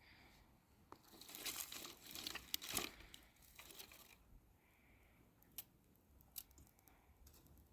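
Faint crinkling and rustling with small clicks for a few seconds, then a few scattered light clicks.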